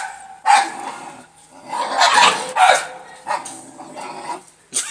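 Dog barking repeatedly, in several loud separate barks.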